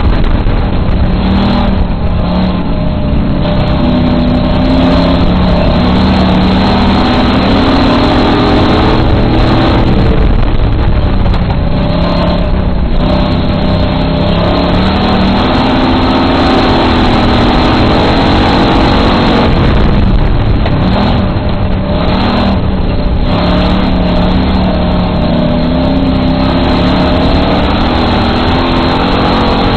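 Dirt-track race car engine at racing speed, heard from inside the car, its pitch climbing and falling again and again as the throttle is opened and lifted, lap after lap.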